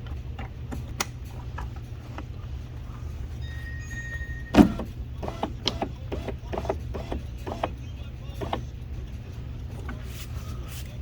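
Clicks and knocks of hand work on a car door, with one loud knock about four and a half seconds in and a brief high tone just before it, over a steady low hum.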